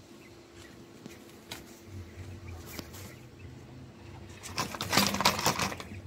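Scattered taps, then a dense burst of rapid rattling clatter about five seconds in, at a wire bird cage with a plastic trough feeder on it. A faint steady hum runs underneath.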